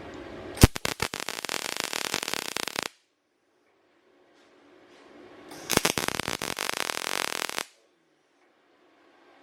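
Wire-feed welder arc crackling in two runs of about two seconds each, each starting with a sharp crack as the arc strikes: short welds laid by a beginner welder.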